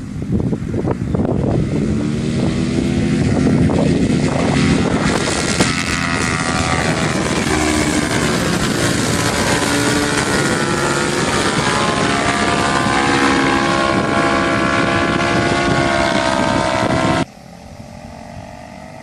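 Paramotor engine and propeller running hard, climbing in pitch over the first few seconds and then holding a steady high note, with strong wind noise on the microphone. The sound drops away suddenly near the end.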